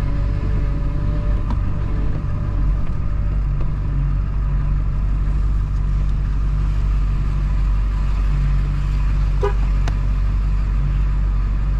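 Ford F-250 Super Duty's 7.3 Powerstroke turbo-diesel V8 running with a steady low rumble.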